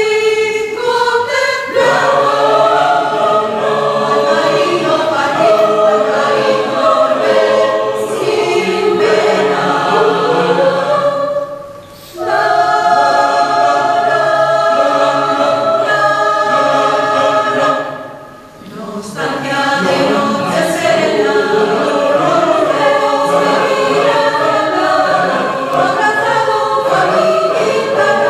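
Mixed choir of men's, women's and children's voices singing a habanera, the phrases breaking off briefly twice, about twelve and nineteen seconds in.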